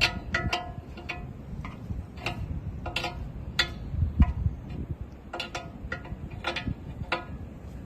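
Sharp metallic clicks, each with a brief ring, coming irregularly about one to two a second, from a wrench working on the bolt that holds the excavator bucket's pin.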